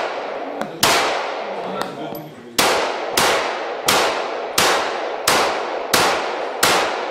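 Glock 17 9mm pistol firing eight shots: one about a second in, then after a pause a steady string of seven, roughly one every two-thirds of a second. Each shot rings out in a long echo off the walls of an indoor range.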